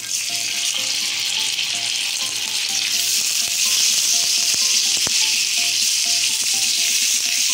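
Raw chicken pieces sizzling in hot oil in a nonstick pan while being stirred and sautéed with a silicone spatula. The sizzle grows louder about three seconds in.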